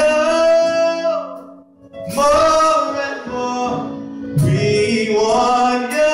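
Gospel singing by a man and women through microphones: three long phrases of held notes, each separated by a short breath, over a steady low accompaniment.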